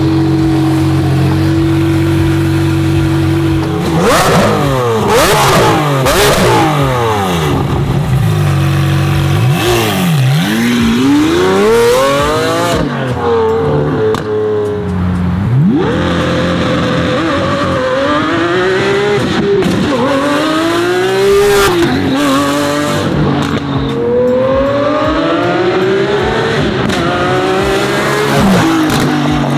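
Lamborghini Aventador's V12, breathing through a 1016 Industries exhaust, running steadily at first, then revving and accelerating hard past, its note sweeping up and dropping again and again through gear changes.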